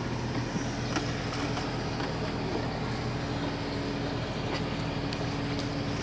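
Boat engine running steadily with an even hum, over a haze of wind and water noise, with a few light knocks.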